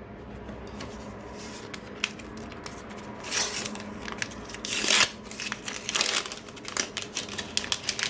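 A sticker pack's wrapper torn open and crinkled, with two louder rustles around the middle, followed by a run of quick light ticks and flicks as the stickers inside are handled.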